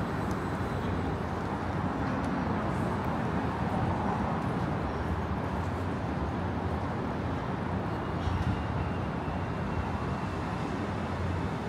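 Steady city street traffic noise, a continuous wash of passing vehicles with a low engine hum underneath.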